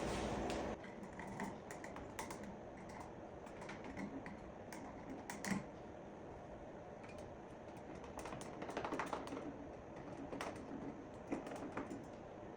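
A steady motor hum, as from a power drill, cuts off about a second in. Scattered light clicks and taps follow, from screws, tools and wood being handled while the brackets are mounted to the plywood base.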